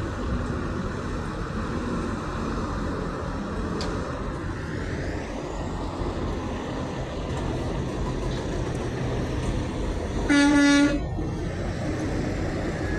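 A semi truck's air horn gives one short, loud blast about ten seconds in, over a steady rumble of truck engines and road traffic.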